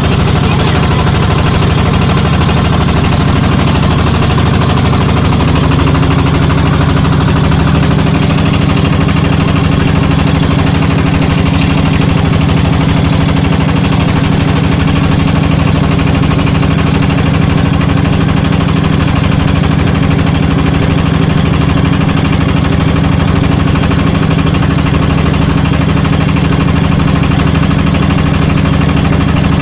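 Motorboat engine running steadily at cruising speed, a loud, rapid pulsing putter that picks up slightly about five seconds in.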